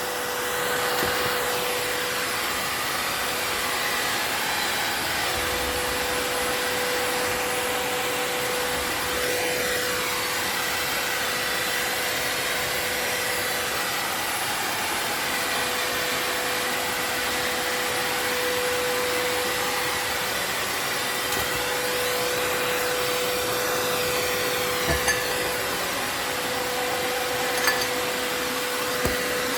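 Vacuum cleaner running steadily with a constant whine. A few sharp ticks come near the end.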